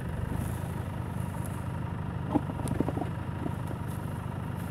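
Land Rover Discovery engine running steadily at low revs as the 4x4 crawls slowly over rough off-road ground. A brief click and a few short knocks come about halfway through.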